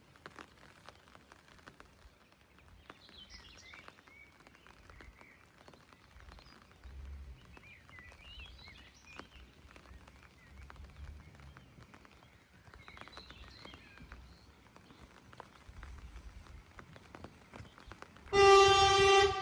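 Birds chirping in short bursts over a faint low rumble, then near the end the arriving SD85 train's horn sounds one loud, steady tone.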